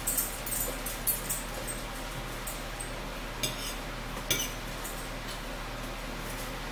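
A metal fork clinking and scraping on a dinner plate in a few short, sharp strokes, over a steady low hum.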